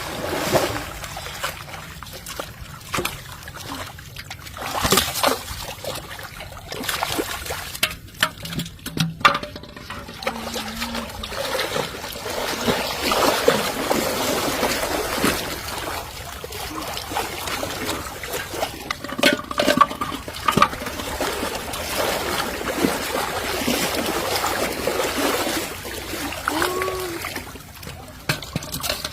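Water splashing and trickling, broken by irregular knocks and clicks.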